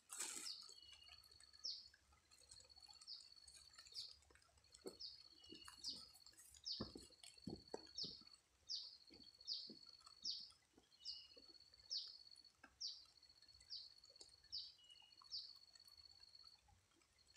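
A faint, high-pitched animal call repeated about once a second: a thin steady tone that ends each time in a short upward chirp, with an occasional lower note. Faint soft knocks are scattered underneath.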